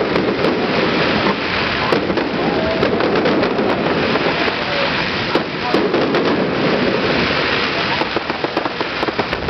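Fireworks display going off: a dense, continuous run of bangs and crackles from bursting shells and crackling stars, with voices of onlookers underneath.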